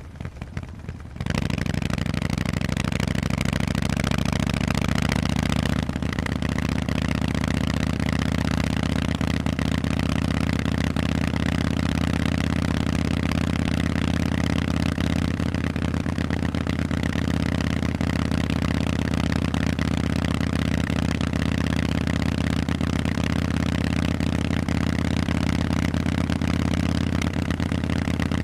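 Harley-Davidson Forty-Eight's air-cooled 1200 cc V-twin running through loud Vance & Hines exhausts. It comes in suddenly about a second in, then runs loud and steady at a constant pitch.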